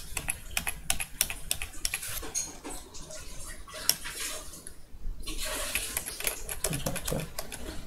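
Quick, irregular clicking of a computer keyboard and mouse.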